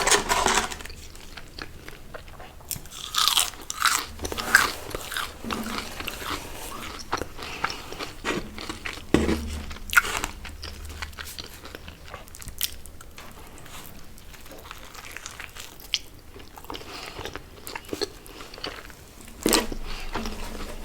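Close-miked biting and chewing of crunchy fried fast food: irregular crisp crunches and crackles of bites and chewing.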